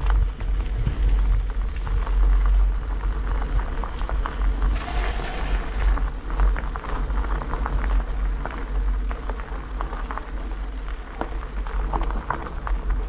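Bicycle ride on a gravel road: steady wind rumble on the microphone with tyres crunching and crackling over loose gravel, and a brief louder hiss about five seconds in.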